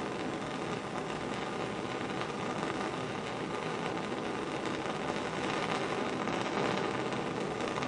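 Bunsen burner gas flame burning steadily under a porcelain crucible, a continuous even rushing hiss with no breaks.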